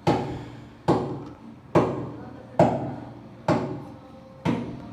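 Six evenly spaced knocks, a little under one a second, each sharp and followed by a short ringing tail.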